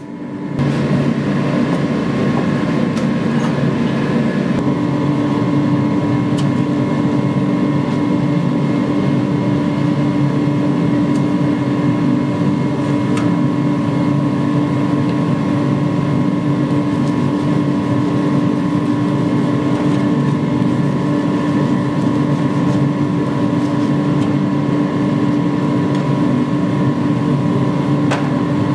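Gas forge running: a steady, loud rushing drone of the burner with a constant hum under it and a few faint clicks.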